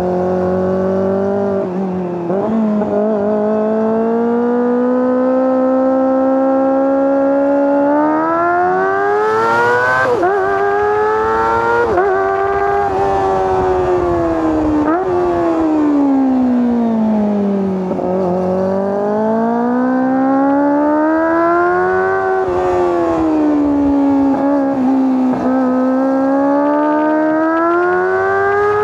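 Kawasaki ZX-25R's 249 cc inline-four engine and exhaust revving high while riding, its pitch climbing and falling with the throttle, with short breaks in pitch at the gear changes.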